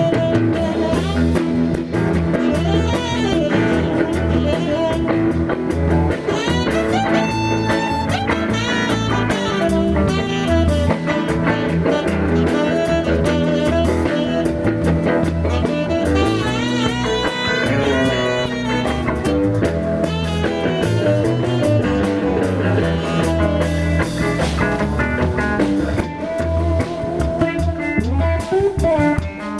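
Blues music with guitar over bass and drums, in a steady rhythm.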